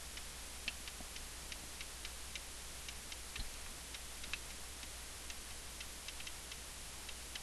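Faint, irregular light clicks and taps of a stylus on a tablet as an equation is handwritten, over a faint steady hum.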